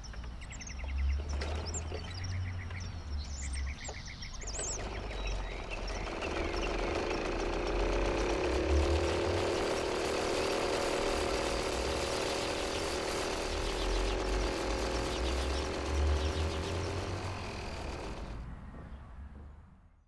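Outdoor ambience: birds chirping over a low rumble, then a louder steady noise swells in about four seconds in and fades out near the end.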